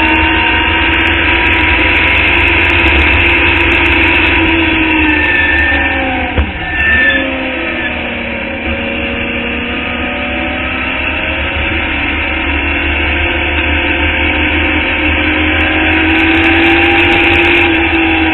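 Onboard sound of a Club Formula Indy open-wheel race car's engine at speed: the revs hold high, drop sharply about six seconds in as the driver lifts for a corner, then climb steadily again as it accelerates out. A rough low rumble of wind buffeting the open cockpit runs underneath.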